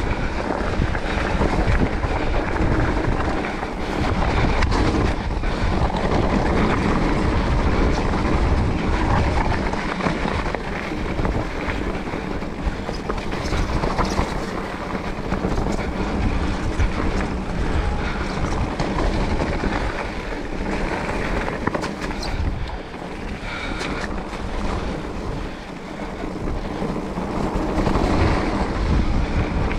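A Specialized Turbo Levo electric mountain bike ridden over a rough dirt and gravel forest trail: a steady rumble of tyres and frame, dense with small rattles and knocks, and wind buffeting the microphone.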